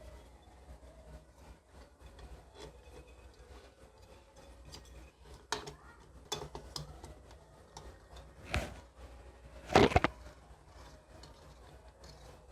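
Scattered small clicks, taps and rubbing from hands working on metal lamp parts, with two louder knocks, the second a little over a second after the first, over a low steady hum.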